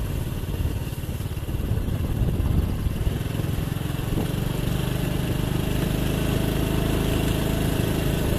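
Small motorcycle engine running as the bike rides along at a steady speed, a continuous low hum whose note settles and holds steady about halfway through.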